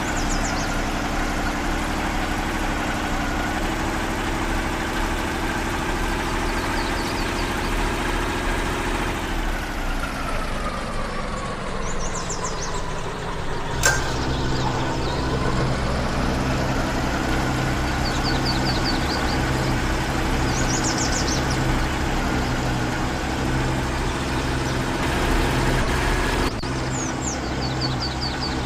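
Off-road vehicle engine running, its pitch sliding down about a third of the way in, then a sharp click and the engine settles into a steady idle.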